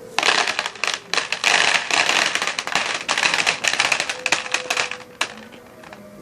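A long, rapid, irregular string of sharp bangs and crackles, many per second, starting just after the beginning and stopping a little after five seconds in. Whether they are firecrackers or gunshots is the open question.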